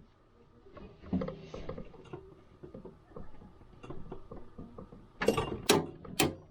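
Click-type torque wrench being ratcheted to tighten a bolt to 40 ft-lb, a rattling stretch early, then a few sharp loud clicks about five to six seconds in.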